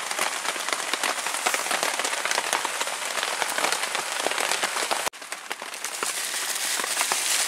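Steady rain falling on a tarp shelter, a dense spatter of many small drops. It drops out for an instant about five seconds in and comes straight back.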